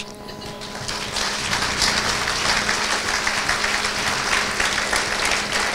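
Audience applauding at the end of a talk, building up over about the first second and then holding steady.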